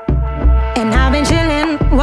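Electronic pop music with a heavy, regular kick-drum beat under held synth tones; a woman's singing voice comes in just under a second in.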